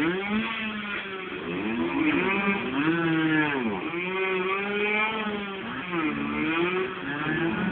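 Off-road motorcycle engines revving up and down repeatedly as the bikes ride, one rising and falling in pitch over a second, steadier engine note.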